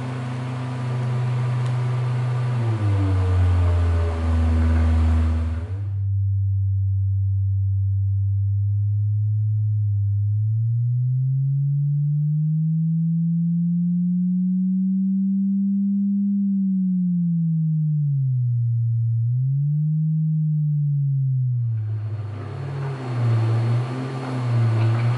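Low electronic sine tone, the installation's stand-in for the sound frequency played to fungal mycelium. It glides slowly up to about twice its pitch around the middle, falls back and wavers. At the start and again near the end it sits under a thicker low drone with hiss and other shifting tones.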